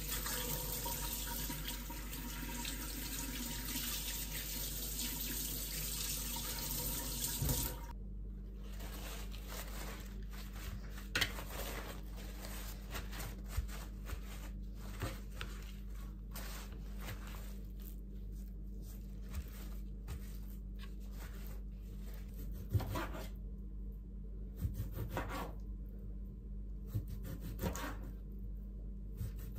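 Tap water running into a stainless steel sink while raw chicken breast is rinsed under it, stopping abruptly about eight seconds in. After that come scattered short rubs and light taps: a paper towel patting the chicken dry, then a knife slicing it on a plastic cutting board, over a faint steady low hum.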